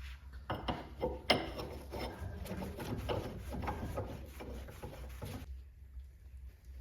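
Handling noise: irregular clicks, knocks and scraping for about five seconds, starting about half a second in.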